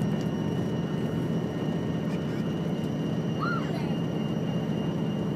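KTR 8000-series Tango Explorer diesel railcar running at speed, heard from inside the passenger cabin: a steady low rumble of engine and wheels on the rails with a faint steady high whine.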